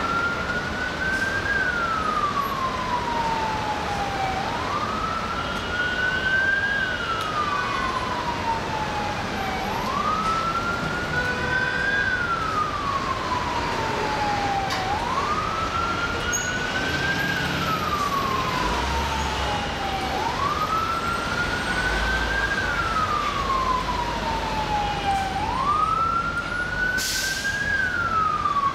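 FDNY emergency vehicle's siren in a slow wail, repeating about every five seconds: each cycle rises quickly to its highest pitch and then falls away more slowly. Steady city traffic noise lies beneath, with a short hiss near the end.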